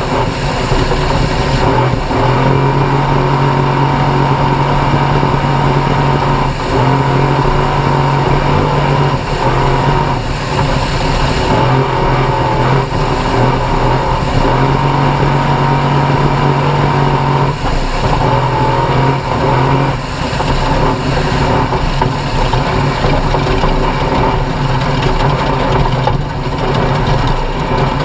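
Off-road race vehicle's engine running hard at steady high revs. The note breaks off briefly every few seconds as the throttle lifts and comes back, with scattered short knocks over a wide noisy hiss.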